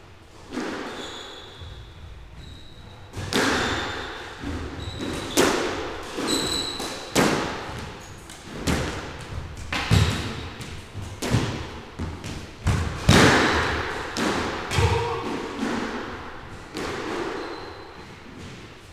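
Squash rally: the hollow rubber ball struck by rackets and hitting the court walls, a string of sharp echoing thuds about once a second, with brief shoe squeaks on the court floor. The hits die away near the end.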